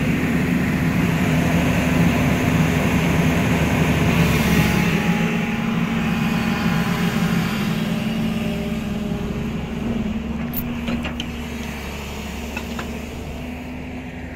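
JCB JS 215 tracked excavator's diesel engine running steadily close by, a low even drone that grows gradually quieter over the last few seconds. A few light sharp clicks come in near the end.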